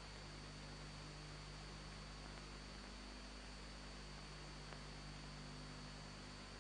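Faint steady hum with hiss: the background noise of the recording, with no distinct sound events.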